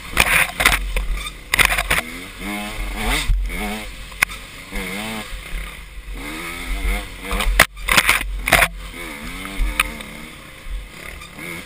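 Dirt bike engine heard from the rider's helmet, revving up and down over and over as the throttle is worked along a tight trail. Sharp bursts of noise from brush and bumps break in several times, the loudest about 8 seconds in.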